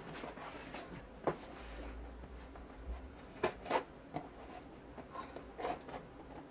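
Scissors cutting and scraping at packing tape on a cardboard shipping box: irregular short scrapes and clicks as the tape is worked open.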